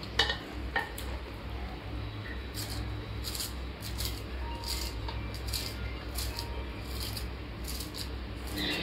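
A knife finely chopping food on a board: two sharper knocks in the first second, then light, crisp cuts about twice a second.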